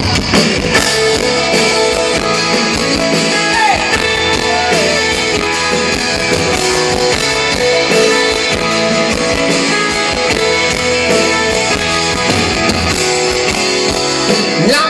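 Live pop-rock band playing an instrumental intro, with no vocals yet: drum kit keeping a steady beat under electric guitar and keyboards, amplified through a concert PA.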